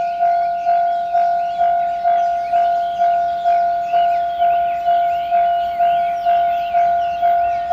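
Japanese railway level-crossing warning bell ringing a steady repeated 'kan-kan' tone, a little over two strokes a second, each stroke fading before the next. It is the crossing's alarm that a train is approaching.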